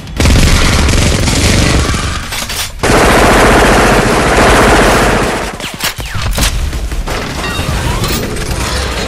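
Dubbed rapid-fire gunfire sound effect, loud and continuous for about five seconds, then dropping to quieter clatter with a few sharp cracks.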